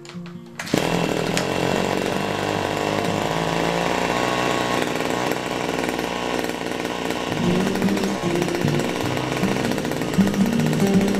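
A BIG M brush cutter's small engine is pull-started and catches about a second in, then runs steadily at a fast, loud clatter. The repaired recoil starter is doing its job again.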